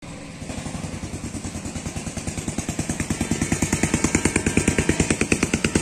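Diesel locomotive engine approaching with a fast, even throb that grows steadily louder.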